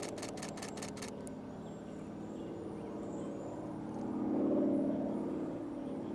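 A rapid burst of camera shutter clicks, about seven in the first second, as a warbler is photographed. Under it runs a steady vehicle engine hum that swells louder about four seconds in and fades again.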